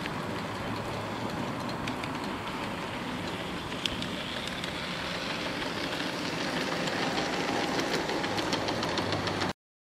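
A G-scale model Taurus electric locomotive and its passenger cars running along outdoor garden-railway track: a steady rolling rumble with scattered light clicks, growing louder as the train draws near. The sound cuts off suddenly near the end.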